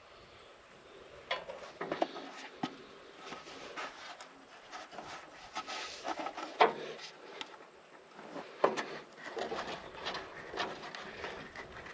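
Rubbing, with scattered small clicks and knocks, of hands fitting hoses and lines on an engine.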